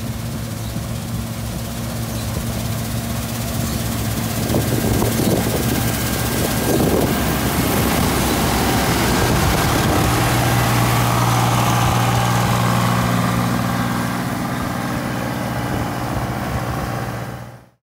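New Holland 8080 combine harvester cutting wheat, its engine and threshing machinery running with a steady low hum. It grows louder as the machine passes close by, and the sound fades out just before the end.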